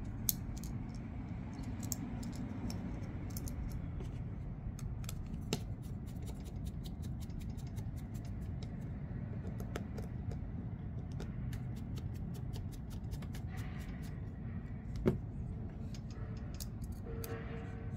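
Small, irregular metallic clicks and ticks of a precision screwdriver working the screws and of parts being handled as a folding knife's handle scales are screwed back on, with one sharper click about fifteen seconds in.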